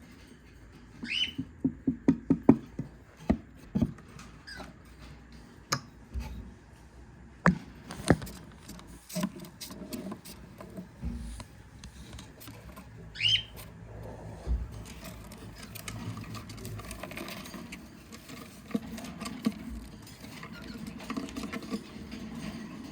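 Knocking, clicking and rustling from handling a cockatiel nest box as it is readied for opening, with a quick run of knocks near the start. A cockatiel gives a short chirp twice, about a second in and again about halfway through.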